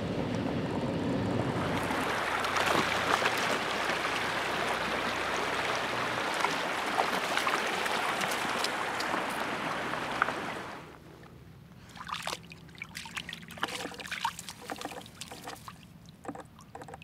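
Shallow creek running over stones, a steady rush of water that cuts off abruptly about eleven seconds in. It is followed by a much quieter stretch of scattered small clicks and splashes.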